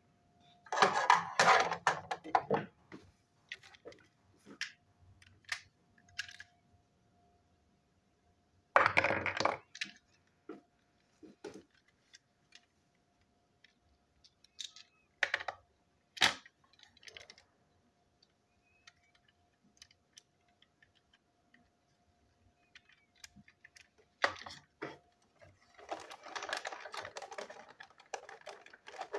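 Plastic toy locomotive parts being handled on a hard tabletop: sharp clicks and clatter, with bursts of handling noise about a second in and about nine seconds in, scattered single clicks, and rustling handling near the end.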